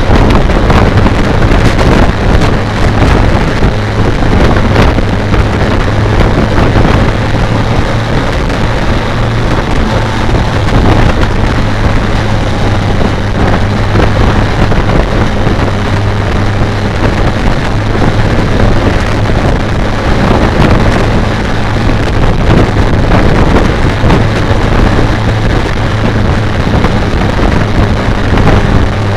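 BMW K1200R Sport's inline-four engine running steadily at about 3,000 rpm on the move, with heavy wind noise buffeting the bike-mounted microphone.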